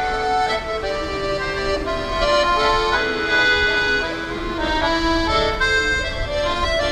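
Piano accordion played solo, a melody of held notes changing about every half second to a second over sustained chords.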